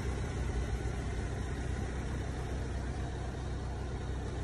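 Vauxhall Vivaro 1.6 CDTi four-cylinder diesel engine idling, a steady low hum with no change.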